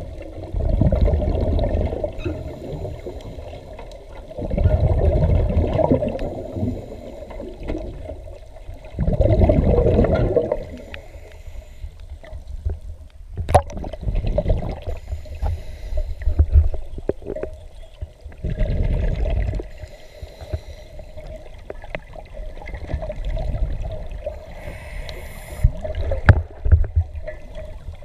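Bubbles from a scuba diver's regulator exhaust, heard underwater: a burst of bubbling with each exhalation, coming every four to five seconds with quieter breaths between. A single sharp click about halfway through.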